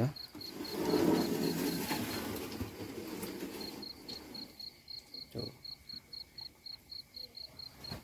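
Crickets chirping in a steady, high, pulsing trill, about four pulses a second. About half a second in, a louder, lower noise swells up, covers the crickets and fades away over about three seconds.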